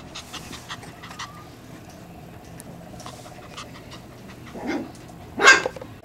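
Peekapoo puppies moving about, with light clicks and scratches and a faint whimper around the middle. A short, sharp puppy vocalisation comes about five and a half seconds in and is the loudest sound, with a softer one just before it.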